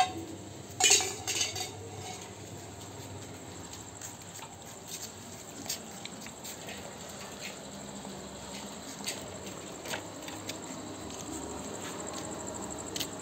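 Steel plate clinking and scraping on concrete as a dog eats from it. There is a cluster of sharp clinks in the first two seconds, then single clinks now and then.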